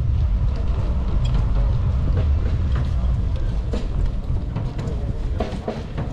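Low rumble of wind on the microphone and tyre noise from a bicycle rolling along a concrete boardwalk, with scattered light clicks and faint passing voices near the end.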